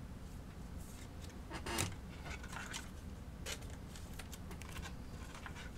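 Faint clicks and rustles of trading cards and packs being handled, a few seconds apart, over a low steady hum.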